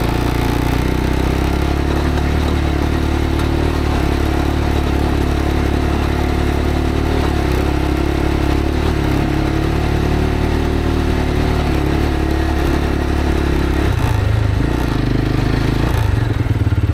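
Road motorcycle engine running steadily under load on a muddy track. The engine note changes about fourteen seconds in and settles into an even pulsing beat near the end.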